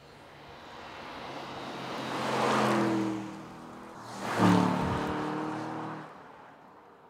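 Aston Martin DBX 707's engine as the car drives by: the sound swells to a peak about two and a half seconds in, dips, then comes back in a sharper, louder burst about four and a half seconds in before fading away.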